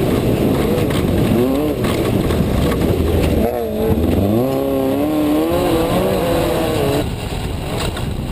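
Off-road race vehicle's engine, heard from inside the cabin, revving up and down as the driver accelerates and lifts. The pitch drops sharply and climbs again about three and a half seconds in, and the engine falls back a little near the end, over a constant rumbling noise from the ride.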